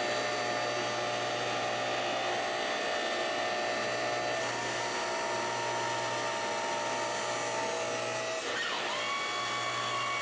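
Press brake running under load as its punch bends a 1/4-inch 6061 aluminum flat bar, with a steady whine over a low hum. The whine shifts pitch partway through, then dips and rises to a new steady tone about eight and a half seconds in.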